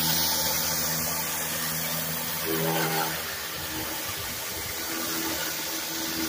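Commercial rotary surface cleaner spraying high-pressure water onto concrete, a steady hiss, over the steady hum of the pressure washer's engine. The engine hum weakens about halfway through and returns near the end.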